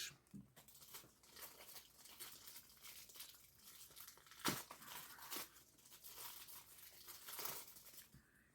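Plastic snack-cake wrapper, the packaging of Hostess white cupcakes, being crinkled and torn open by hand: faint, continuous crackling with a few sharper crackles.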